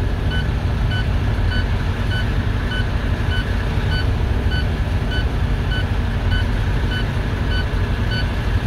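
Heavy diesel truck engine idling steadily, with a short electronic beep repeating about every three-quarters of a second.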